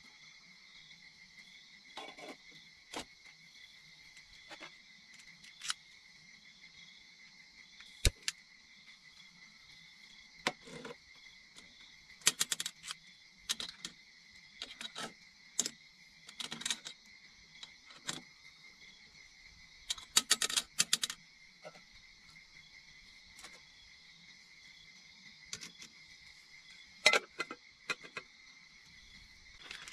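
Steady high-pitched insect chorus, with irregular sharp clicks and clinks scattered throughout, some in quick clusters, the loudest about eight seconds in and near the end.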